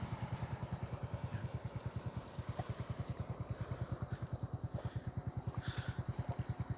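Motorcycle engine idling: a steady low putter of about ten even beats a second.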